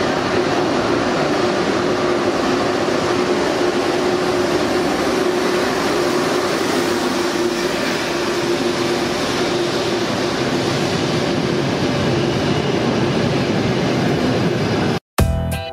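High-speed electric train running along a station platform: a steady rushing rumble with a faint steady hum. It cuts off abruptly near the end and music with a beat starts.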